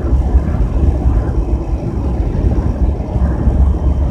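Steady low road noise and engine drone inside a van driving at highway speed.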